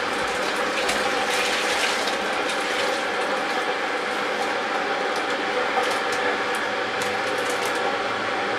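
Liquid malt extract from a beer kit pouring steadily out of a plastic pouch into a plastic fermenter, with a few crinkles from the pouch in the first couple of seconds.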